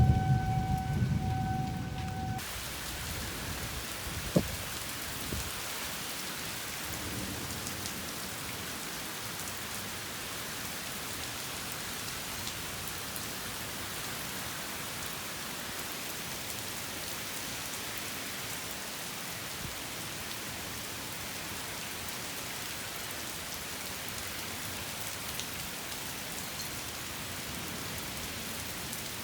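Heavy rain falling in a severe storm, a steady even hiss. In the first two seconds a steady siren-like tone and a low rumble are heard, and both cut off suddenly. A single sharp knock comes about four seconds in.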